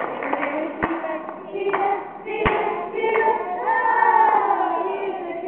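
A group of young children singing a song together in unison, with a couple of sharp hand claps.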